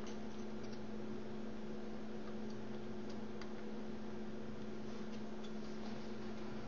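Steady electrical hum with a few faint, scattered ticks, heard while a soldering iron works solder onto circuit-board pins.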